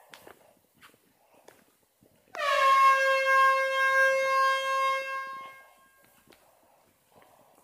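An air horn sounds one steady blast about three seconds long, starting sharply about two seconds in and then fading out.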